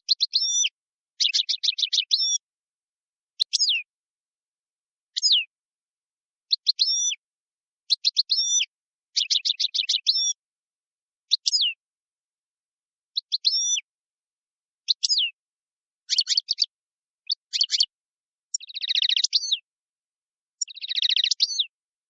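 A small caged songbird singing in short phrases of high chirps, up-and-down whistles and fast buzzy trills, with pauses between phrases.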